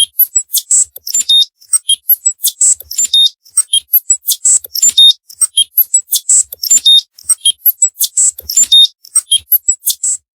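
A cartoon sound effect: a fast, uneven run of short high-pitched pings and beeps, about four a second, that stops just before the end.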